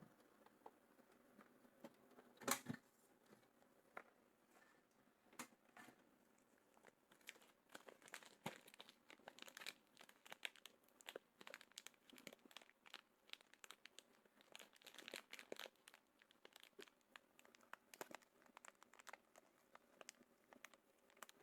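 Faint scattered clicks and crinkling from small parts and their packaging being handled, likely the new resistors being got ready to fit. A sharper click comes about two and a half seconds in, and the clicking gets busier from about seven seconds on.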